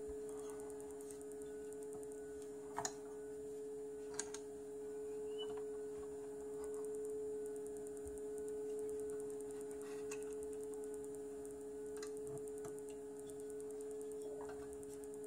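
A steady hum runs under a few short clicks and light knocks as the parts of a cordless circular saw are handled: its aluminium base plate, bevel adjustment and plastic rip guide. The two clearest clicks come about three and four seconds in.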